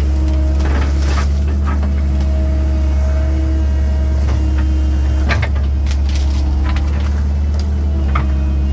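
1997 Link-Belt 2700 excavator's diesel engine running steadily under work, with a few short knocks: one about a second in, a stronger cluster about five seconds in, and another near the end.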